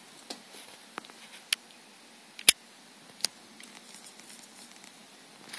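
A handful of sharp, isolated clicks over a low hiss: about five in all, spaced irregularly, the loudest about two and a half seconds in.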